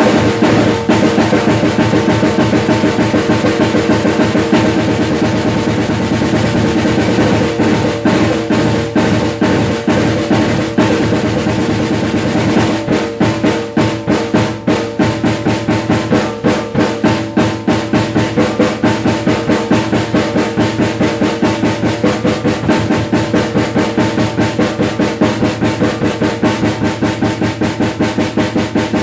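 Acoustic drum kit played with sticks: fast snare and bass-drum patterns with cymbals ringing over them. About halfway through, the playing settles into a steady, evenly spaced run of strokes.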